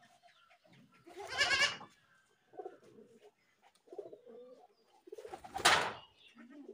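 A goat kid bleats once with a quavering cry about a second in. Soft low calls follow, and a short harsh noisy burst comes near the end, the loudest sound.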